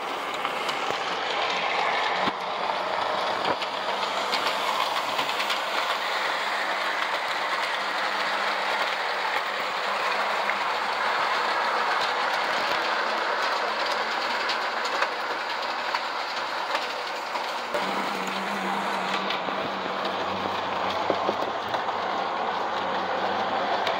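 O scale Lobaugh Union Pacific FEF model steam locomotive and metal passenger cars rolling steadily around the track: a continuous running noise with light clicks from the wheels and rail joints, and a low motor hum that gets louder about three-quarters of the way through.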